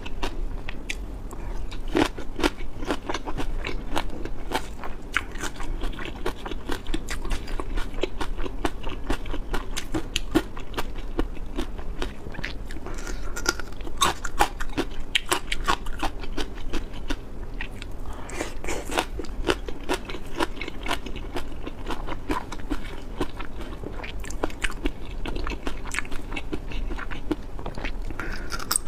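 A person chewing and biting food, with a dense, continuous run of crunching clicks.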